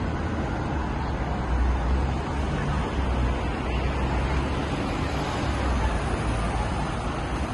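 Steady city road traffic noise, with an uneven low rumble underneath.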